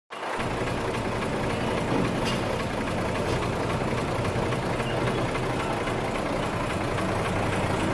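Diesel engine idling steadily, from heavy equipment or the truck.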